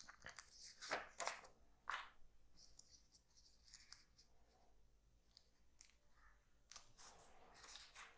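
Faint rustling and scraping of paper sheets being handled as a page is changed, a few soft scrapes in the first two seconds and again near the end.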